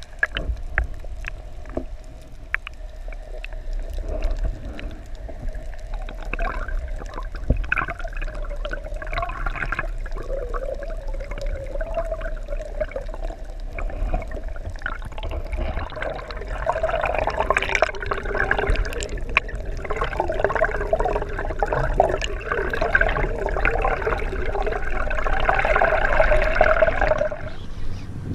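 Water heard from underwater, muffled, with many scattered sharp clicks and a wavering hum that grows louder after the middle and stops shortly before the end.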